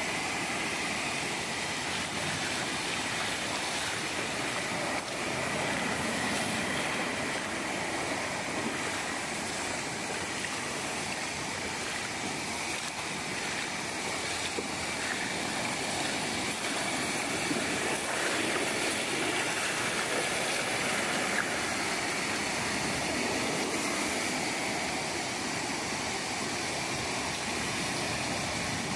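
Small waves breaking and washing up on a sandy beach: a steady rush of surf that swells a little now and then.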